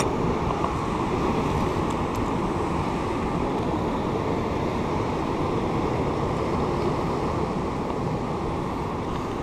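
Steady rush of ocean surf and wind at a rocky shoreline, an even noise that holds at one level throughout.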